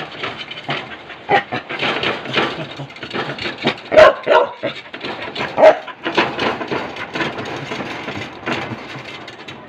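Dog barking repeatedly in short, sharp barks, loudest twice, about four and six seconds in.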